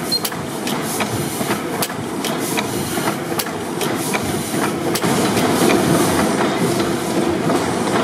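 A 600 HP Snow pipeline compressor engine, a large four-stroke double-acting gas engine, running: a steady mechanical clatter with many sharp clicks over a hissing background, louder from about five seconds in.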